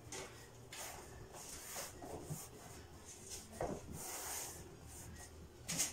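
Linoleum sheet being pressed and shifted by hand: intermittent faint rustling and scraping, with a brief hiss about four seconds in and a couple of soft knocks.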